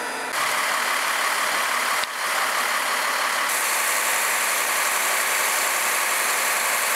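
Fire engine running steadily under an even, loud hiss; the noise dips for a moment about two seconds in.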